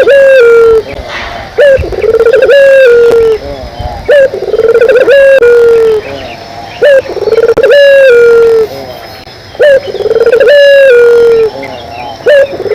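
Puter geni dove (cage-kept ringneck dove) cooing loudly, over and over: each phrase is a short rising-and-falling note followed by a longer held coo, repeating every couple of seconds.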